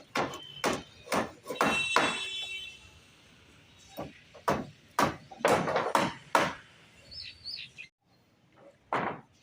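Hammer blows on formwork in quick runs, about two or three a second, the first run leaving a brief metallic ring; one more knock near the end.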